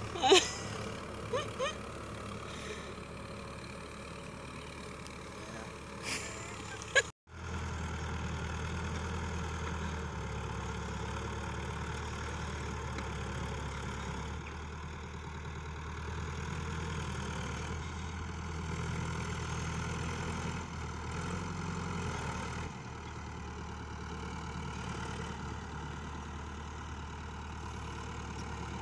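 Iseki tractor engine running steadily as it pulls a disc harrow through soil. A few brief, sharp louder sounds come in the first couple of seconds, and there is a short break about a quarter of the way through.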